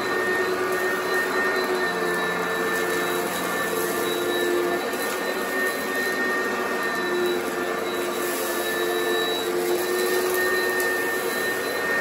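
Oreck XL Commercial upright vacuum running steadily with a high motor whine as it is pushed across heavily soiled carpet, with faint ticks of grit and crunchy debris being sucked up.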